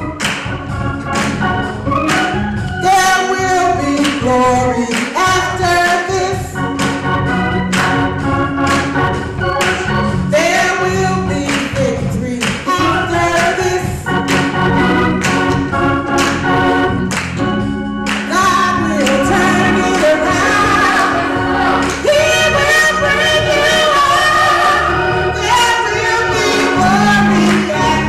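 Gospel song in church: a woman leads into a microphone while the choir and congregation sing along, with organ accompaniment and hand clapping on the beat.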